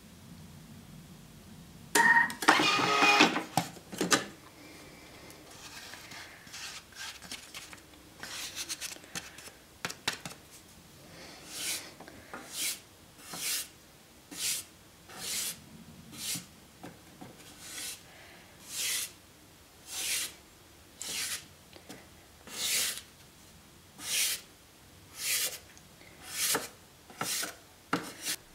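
A spoon scraping and scooping through dry ground coffee in a container, in short, evenly spaced strokes about once a second. A loud clatter with a brief ring comes about two seconds in.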